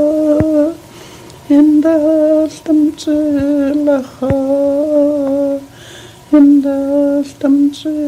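A person humming long, steady notes, nearly all on one pitch, in short phrases with brief breaks between them.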